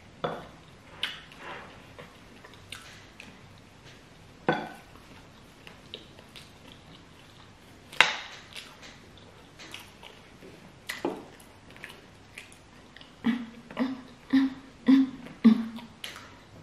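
Metal forks clinking and scraping against ceramic plates, with chewing, in sharp separate taps. Near the end comes a quick run of five short low hums.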